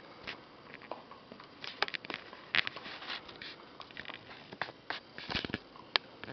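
Alaskan Malamute puppy chewing and gnawing on a bully stick: irregular short clicks and crunches, with a brief run of them about five seconds in.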